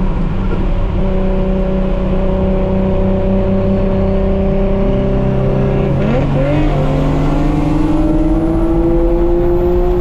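Nissan Skyline R32 GT-R's twin-turbo RB26DETT inline-six heard from inside the cabin while driving. It holds a steady note, changes pitch quickly about six seconds in, then climbs steadily as the car accelerates.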